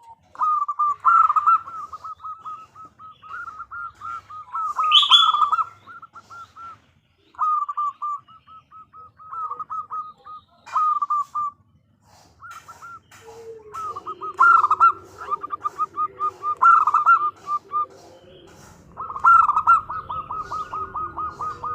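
Female zebra dove (perkutut) calling: bursts of rapid, short staccato notes, each run lasting one to three seconds with brief pauses between. A fainter, lower steady sound runs beneath the calls from about halfway on.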